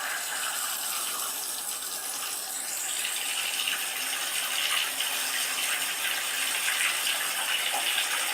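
Water running steadily from a bathtub tap into the tub, the sound brightening slightly about three seconds in.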